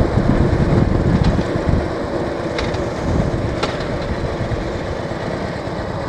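Cruiser motorcycle engine running at road speed, with wind rushing over the handlebar-mounted microphone. It is a little louder in the first two seconds, then steady.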